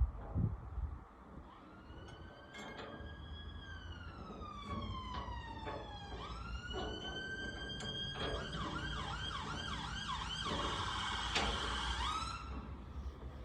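Emergency-vehicle siren: a slow wail rising and falling, then a fast yelp, then a held high tone that cuts off near the end. A few knocks at the start, with one sharp knock shortly before the siren stops.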